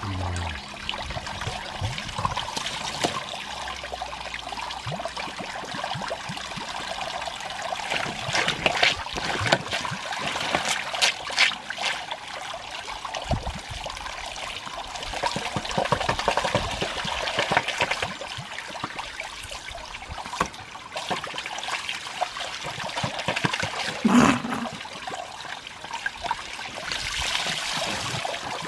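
Water running and splashing from a hose as a Shiba Inu plays in the stream, the splashing rising and falling in loudness, with a sharper splash about 24 seconds in.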